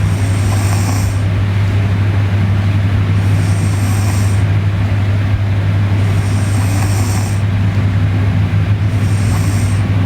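A sleeping person snoring, four breaths about three seconds apart, each with a breathy hiss lasting about a second, over a steady low hum.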